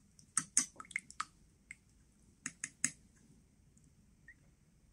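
Light, scattered clicks and taps from adding a capsaicin hot-pepper additive to a plate of borscht: a quick run of them in the first second or so, then three more a little before the three-second mark.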